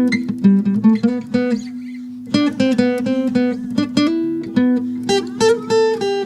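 Acoustic guitar played live: picked notes ringing over a held bass note, with a brief lull about two seconds in.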